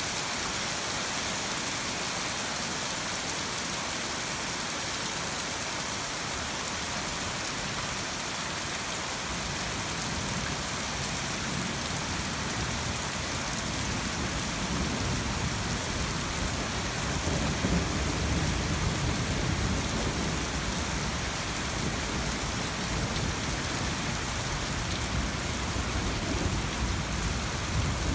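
Steady rain hissing, with a long low rumble of thunder that builds about a third of the way in, swells in the middle and rolls on to the end.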